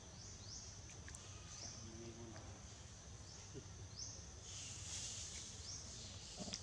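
Faint outdoor ambience of insects: a high steady buzz with short rising chirps every second or two, and a brief swell of hiss about five seconds in, over a low rumble.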